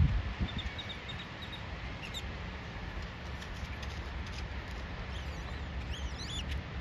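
Small birds calling: a row of short high chirps, then a few quick sweeping calls near the end, over a steady low background rumble with a few faint clicks.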